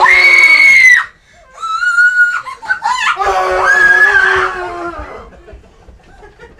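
People screaming in fright. A loud scream cuts off sharply about a second in, then come broken, higher shrieks and another long scream that fades away within about five seconds.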